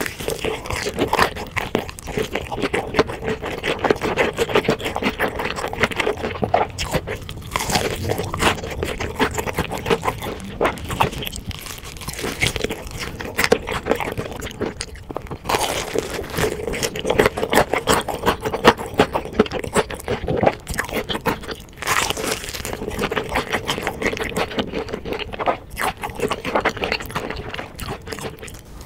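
Crunching bites into a sauce-glazed fried chicken drumstick and chewing it, close to the microphone: a dense run of crisp cracks and crackles throughout.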